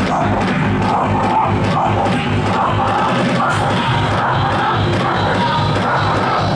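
Electronic dance music from a DJ set, loud and continuous, with a steady beat of about two strikes a second.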